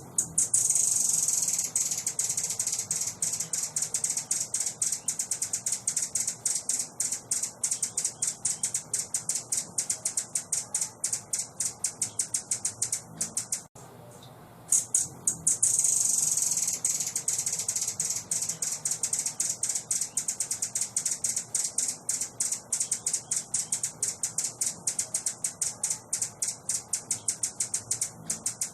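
A small songbird's rapid, high-pitched chattering trill, from a master-song recording used to train caged songbirds. The same long phrase runs about thirteen seconds, breaks off briefly about halfway through, then starts again.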